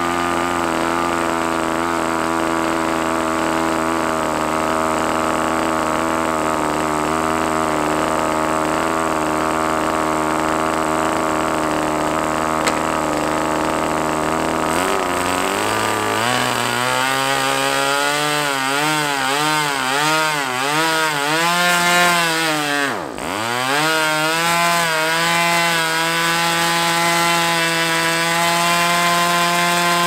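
Force 46 two-stroke glow-fuel (nitro) model aircraft engine, new and on its first run, turning its propeller at a steady speed. About halfway through, its pitch climbs as it speeds up, wavers for several seconds with a brief dip, then holds steady at the higher speed.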